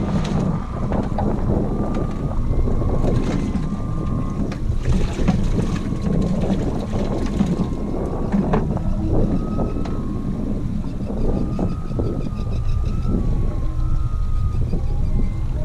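Suzuki 90 outboard motor running at trolling speed, a steady low hum, with wind buffeting the microphone and a few short knocks from gear being handled in the boat.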